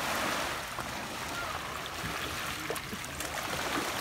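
Shallow sea water washing and lapping at the shore, a steady rush of noise.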